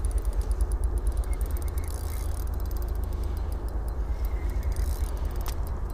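Wind buffeting the camera microphone on open ice, a steady low rumble that rises and falls.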